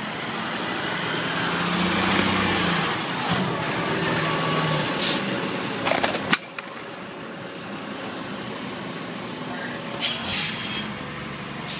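Fire engine's diesel engine running as the pumper drives slowly past, growing louder for the first six seconds before the sound cuts off abruptly. After that comes steadier, quieter street noise, then a brief loud hiss about ten seconds in.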